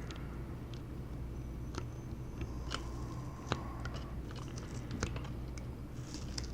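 Small crackles and ticks of adhesive protective tape being peeled off a laptop motherboard, over a low steady hum.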